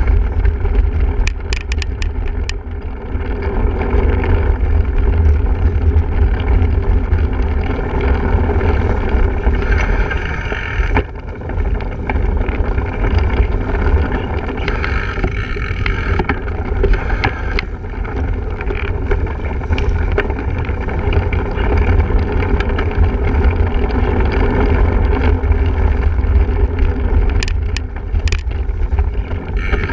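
Steady wind rumble on the microphone while riding a single-speed cyclocross bike, with a few sharp clicks and rattles from the bike near the start and near the end.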